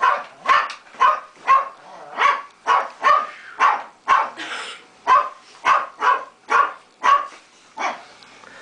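A man's short, voiced gasping breaths, about two a second, from the burn of a large spoonful of ghost pepper sauce. The gasps stop near the end.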